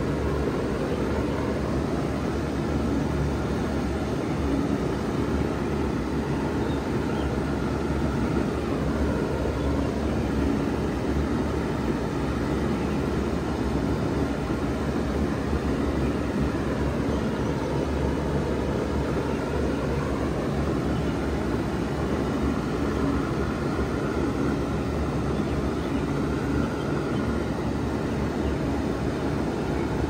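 1996 Bard 3-ton wall-mounted heat pump running steadily in cooling mode: a low compressor hum under the steady rush of the outdoor condenser fan.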